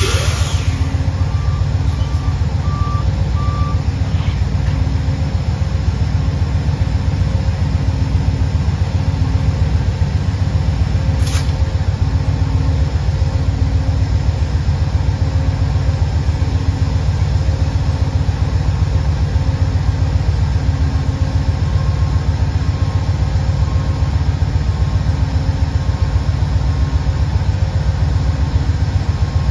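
Amtrak GE Genesis diesel locomotive running while it stands at the platform, a steady low engine drone. A low beep repeats about every second and a quarter over it.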